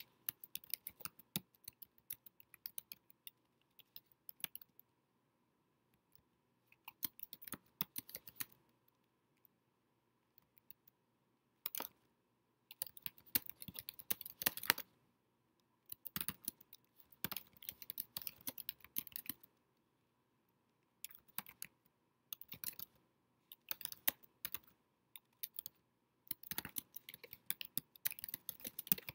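Typing on a computer keyboard: bursts of rapid key clicks with pauses of a second or two between them, over a faint steady tone.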